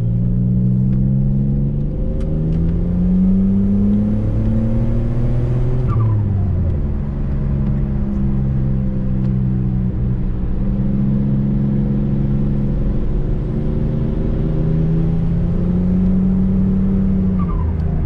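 Nissan Stagea M35's engine heard from inside the cabin while driving. Its pitch climbs over the first few seconds, falls about six seconds in, holds steady, then climbs again near the end, over a low rumble.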